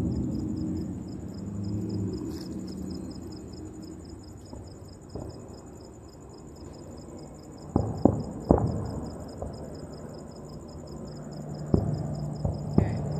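Crickets chirping: a steady high trill with a fast, even pulse beneath it. A few sharp pops or knocks cut through, three close together about eight seconds in and two more near the end.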